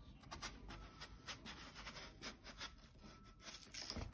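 Knife cutting through a watermelon, heard as faint, crisp clicks and scrapes, with a slightly louder cluster near the end as a slice is handled.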